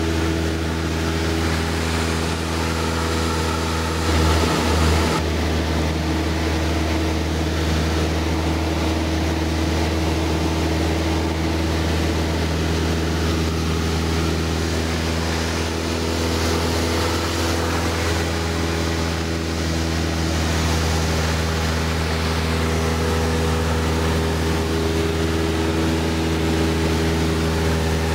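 Cessna 172 floatplane's piston engine and propeller droning steadily in cruise, heard inside the cabin, with a brief louder low rumble about four seconds in.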